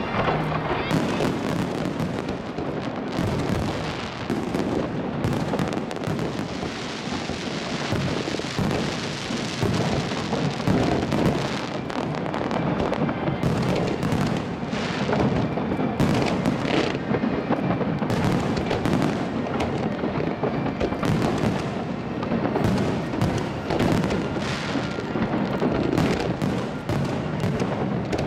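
Display fireworks fired from a barge, heard at close range: a continuous run of launches, crackling fountains and shell bursts, with many sharp bangs throughout and no pause.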